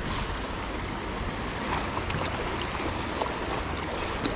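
Shallow river running fast over a stony bed: a steady rushing hiss of water, with a few faint clicks.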